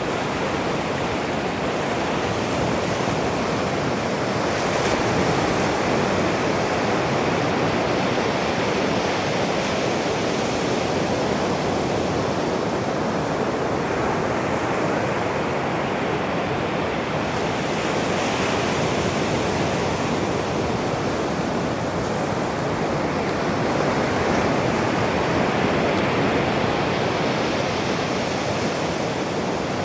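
Ocean surf breaking on a sandy beach: a steady wash of noise that swells every several seconds as each wave breaks and runs up the sand.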